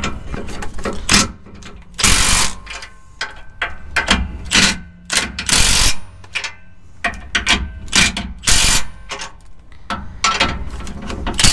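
Cordless impact gun driving the rear U-bolt nuts of a Ford F-150's leaf spring in a string of short bursts, with small tool clicks between them. The nuts are being snugged down evenly before final torquing with a torque wrench.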